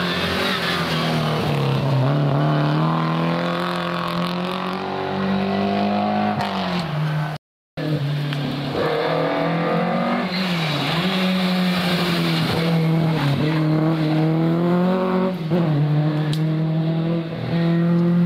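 Historic rally car engines at full throttle, the pitch climbing and dropping with gear changes and lifts off the throttle. A short gap about a third of the way in, where one stretch of running gives way to another.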